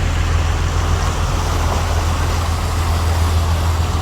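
Yacht's engines running steadily: a constant low hum under an even wash of noise.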